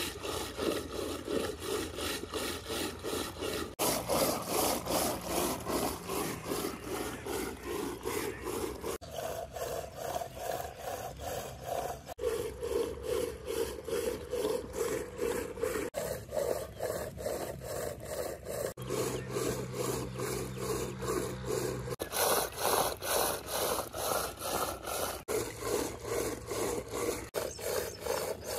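Rhythmic rough rubbing strokes, about two to three a second, from some hand task worked back and forth. The sound breaks off and restarts abruptly every few seconds.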